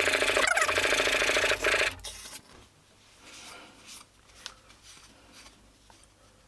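Steel plane iron in a roller honing guide scraped back and forth on a wet 1000-grit waterstone, a loud steady grinding scrape that stops about two seconds in. Then faint rustling as a cloth wipes the blade and stone.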